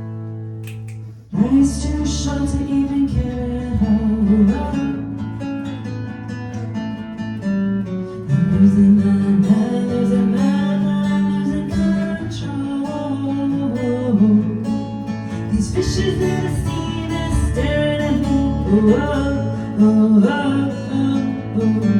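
Acoustic guitar strumming a song's instrumental intro. A held chord breaks off about a second in, and louder, fuller strumming starts.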